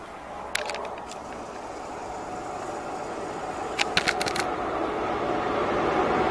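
High Speed Train with its Class 43 diesel power car leading, approaching at speed, its noise growing steadily louder. A few sharp clicks come about half a second in and again around four seconds in.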